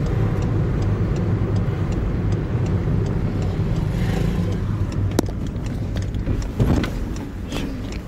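A car's engine and tyres running steadily while driving along a road, with a couple of sharp knocks about five and six and a half seconds in.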